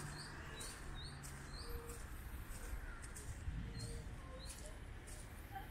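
Birds chirping in a regular rhythm, about twice a second, with a few faint low short notes. A faint low hum dies away in the first second or two.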